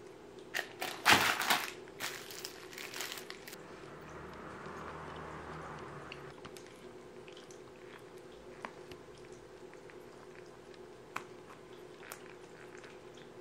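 Plastic film crinkling in a few sharp crackly bursts during the first three seconds or so as the food packaging is handled, then softer rustling and a few faint isolated clicks over a faint steady hum.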